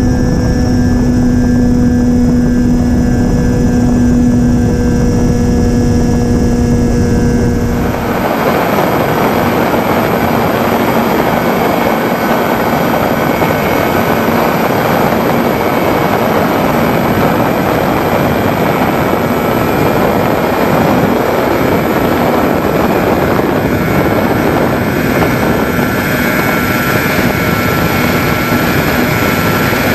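Onboard sound of a Sonicmodell Binary twin-motor electric RC plane in flight: its brushless motors and propellers hum steadily. About eight seconds in, where the camera changes, the sound turns into a broad rushing of wind, with the motor hum fainter beneath it.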